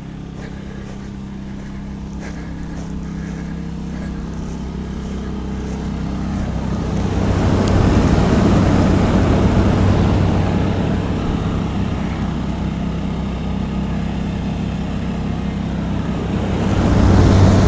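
Camper air conditioner running: its fan blowing with a rushing noise over a steady low hum. It grows louder about seven seconds in, stays up for a few seconds, then eases off.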